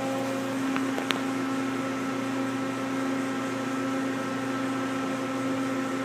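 Steady electrical and fan hum of a powered-up 1997 Mazak Quick Turn 20 CNC lathe standing idle with its spindle stopped: a low drone with a few steady tones over a soft hiss. There is one light click about a second in.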